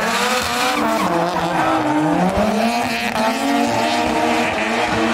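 Drift car engine revving up and down over and over as it is worked on and off the throttle, with tyre squeal and skidding noise.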